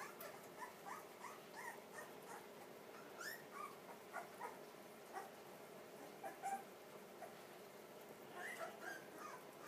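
Pit bull puppies whimpering: many short, faint, high-pitched squeaks and cries, repeated again and again, with a closer run of them near the end.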